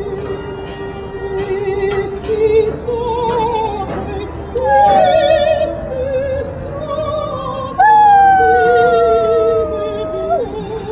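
A dog howling along with operatic singing: two long howls that start suddenly and slide downward in pitch, about four and a half and eight seconds in, the second the loudest, over the singer's steady vibrato line.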